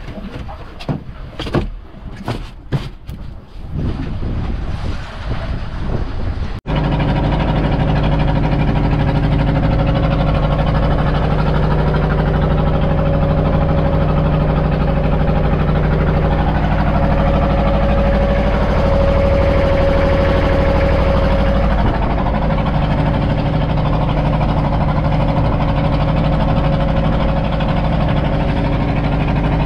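Wind buffeting the microphone with sea noise for about the first six seconds, then, after an abrupt cut, a fishing boat's inboard engine running loud and steady.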